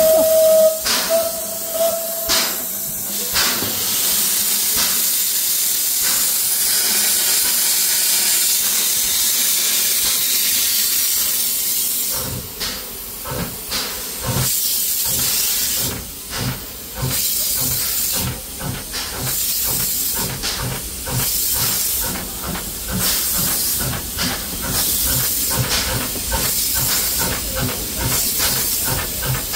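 Rack steam locomotive 411.106: a short steady whistle note at the start, then a steady hiss of steam. About twelve seconds in, a regular rhythm of exhaust beats begins and picks up pace as the engine gets under way.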